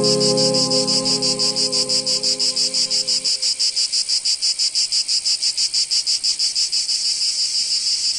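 Crickets chirping in a steady rapid pulse, about seven chirps a second. Soft sustained music notes underneath end about three seconds in.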